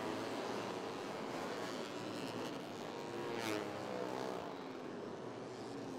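Four-stroke 150 cc underbone race motorcycles running at racing speed, their engines' pitch rising and falling as they rev through the gears. One bike passes by about three and a half seconds in.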